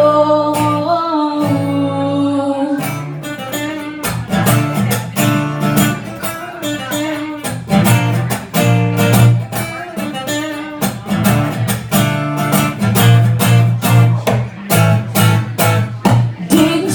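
An instrumental break in a live song: guitar strumming in a steady rhythm. A held sung note carries over into the first few seconds and fades out.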